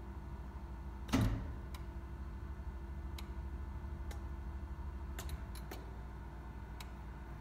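Switchgear on a generator transfer test stand: a loud contactor clunk about a second in as the mains breaker opens, then a few light relay clicks and a cluster of clicks around five seconds in as the generator breaker closes. A steady low hum runs underneath.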